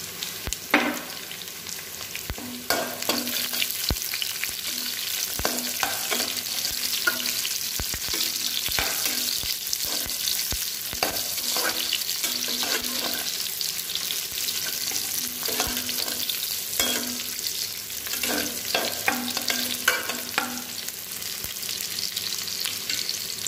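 Sliced shallots and garlic cloves sizzling steadily in hot oil in a deep pan. A spatula scrapes and knocks against the pan at irregular moments as they are stirred.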